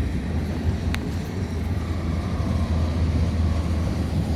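Steady low rumble of a vehicle engine idling, with a single sharp click about a second in.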